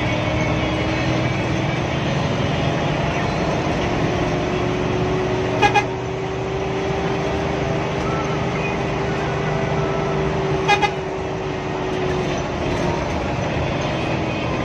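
Hino AK8 bus's diesel engine and road noise running steadily inside the cabin, with the bus horn giving two quick double toots about five seconds apart.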